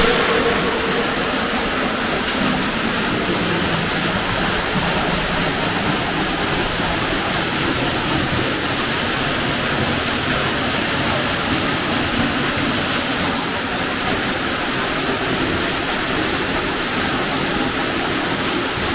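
Steady rush of water echoing in a rock tunnel: a levada irrigation channel flowing, with water falling at the tunnel mouth.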